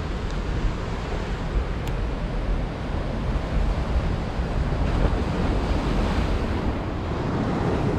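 Surf from big ocean waves at a rock jetty, a steady rushing wash, with wind rumbling on the microphone.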